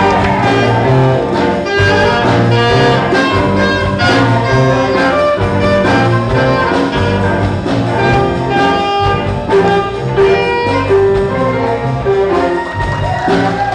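Middle school band playing, brass to the fore, with many held notes over a steady beat.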